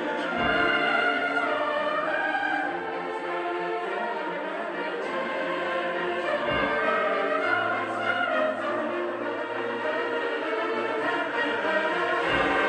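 Church bell tolling, struck about every six seconds, with a dense wash of overlapping ringing tones lingering between the strokes.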